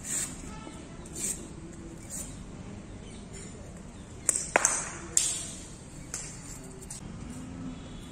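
Cricket bat striking the ball with a sharp, ringing crack about four and a half seconds in, just after a lighter click as the ball lands on the concrete pitch, followed by a rougher knock. Earlier, a few light taps about a second apart.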